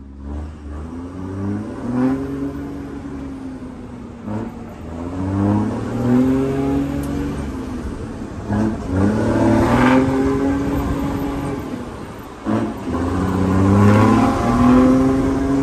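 Truck diesel engine with a modified exhaust, heard from inside the cab under hard acceleration: the engine note climbs in pitch in each gear and drops back at each upshift, about four times.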